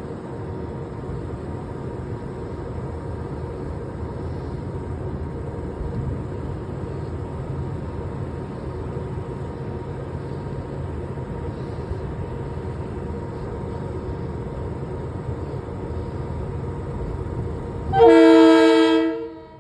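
Commuter train standing at a station with a steady low hum. Near the end it sounds one loud horn blast of about a second and a half.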